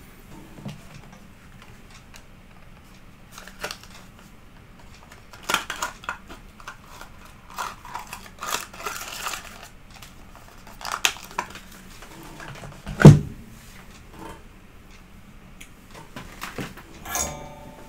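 Off-picture handling noises on a workbench: scattered clicks, rustles and light clatter, with one sharp knock about thirteen seconds in and a short rattle near the end.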